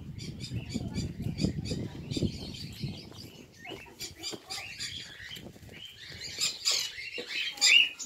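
A flock of caged budgerigars chirping and chattering in quick, overlapping calls, getting louder near the end. A low rumbling noise runs under the first few seconds.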